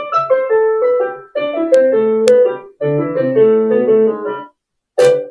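Short piano intro jingle: three quick runs of notes, then one short, sharp accented hit just before the end.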